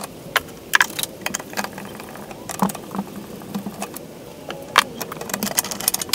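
Plastic shroud and engine cover of a Briggs & Stratton lawnmower engine being worked loose with gloved hands and a screwdriver: irregular plastic clicks, knocks and rattles, the cover held up by a hidden plastic clip. A faint steady hum lies underneath.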